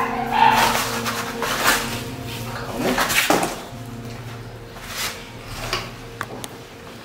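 Rustling and scraping of flattened cardboard as a dog is held and handled on it, with a few light knocks and clicks.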